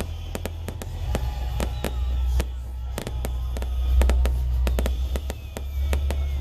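Aerial fireworks shells bursting in an irregular series of sharp bangs and crackles, several a second, over a steady low rumble.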